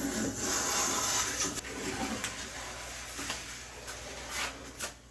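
A hand plane working a wooden board: a long hissing scrape for about the first two seconds, then lighter rubbing and a few small knocks.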